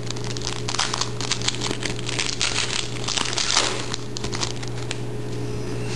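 Trading cards being flipped through one after another by hand: a rapid, irregular run of card-edge clicks and rustles, over a steady low hum.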